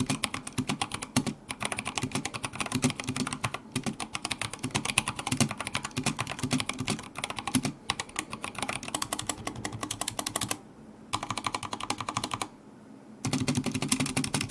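Fast typing on a stock Drop Shift mechanical keyboard with its Halo True switches: a rapid stream of loud keystrokes, stabilized keys included, broken by two short pauses near the end.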